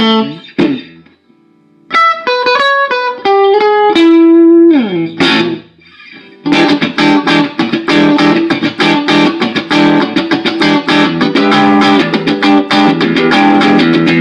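Electric guitar played through a freshly repaired amplifier set for clean tone. There is a run of single notes climbing in pitch, then a held note that slides down, a brief pause, and then fast, steady picked chords to the end.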